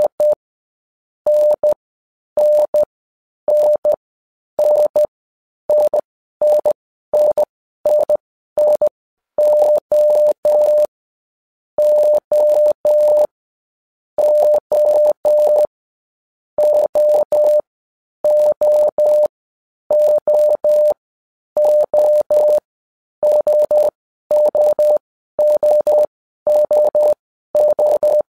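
Morse code sent as a single mid-pitched beep, keyed on and off in short dots and longer dashes, in letter groups separated by pauses.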